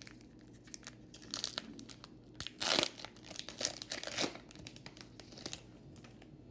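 Foil trading-card pack wrapper being torn open and crinkled by hand, in several short rips and rustles, the loudest about two and a half seconds in.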